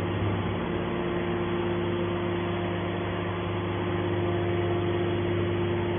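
Hydraulic scrap metal baler's power unit running with a steady, even hum and a constant whine, no strokes or impacts.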